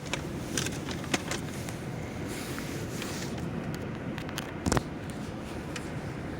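Strong gale-force wind buffeting the microphone as a steady low rumble, with scattered sharp clicks and a louder knock a little before the five-second mark.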